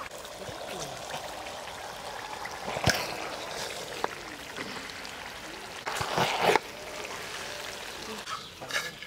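Pot of pulao with pangasius fish fat cooking on the fire: a steady watery bubbling hiss, with a sharp utensil knock about three seconds in and a short louder burst a little after six seconds.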